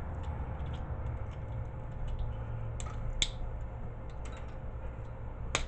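Pliers clicking and tapping against a small plastic-cased relay as it is pulled apart for its copper coil and contacts: scattered light clicks, a sharper click about three seconds in and another near the end, over a low steady hum.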